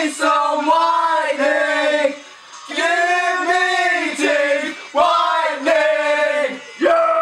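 Several men singing together in held, gliding phrases, broken by short pauses about two and a half, five and seven seconds in.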